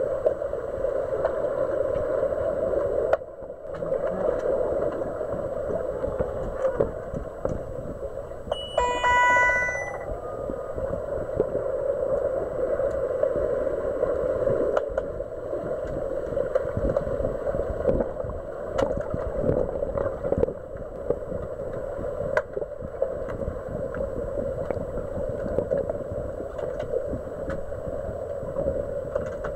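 Underwater sound of an underwater hockey game picked up by a submerged camera: a steady muffled hum and water rush with scattered sharp clicks and knocks from the play on the pool bottom. About nine seconds in, a short burst of high stacked tones sounds, and the sound drops out briefly about three seconds in.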